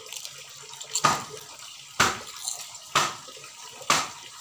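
Crisp fried papadam chips crunching as they are chewed, four sharp crunches about a second apart.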